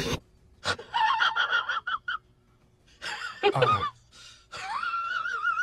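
High-pitched cat calls: a quick pulsing run of short mews, a brief falling meow, then a long wavering call near the end.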